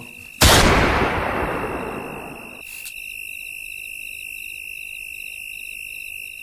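A sudden loud hit about half a second in that fades over about two seconds, then crickets chirping in a regular pulse, about three chirps a second, over a steady high insect drone: a night-time sound effect.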